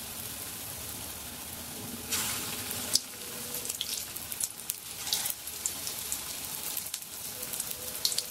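Besan-battered cauliflower pieces deep-frying in hot oil in an aluminium karai: a steady sizzle with crackling, swelling briefly about two and five seconds in as more battered pieces are dropped into the oil.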